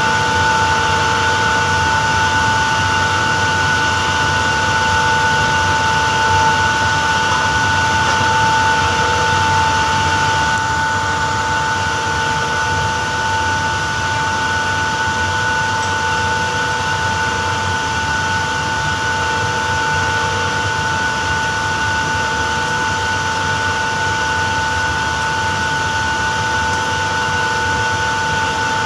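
Screw compressor of an air-handling unit's refrigeration plant running: a steady mechanical hiss with a constant high whine, slightly quieter from about ten seconds in.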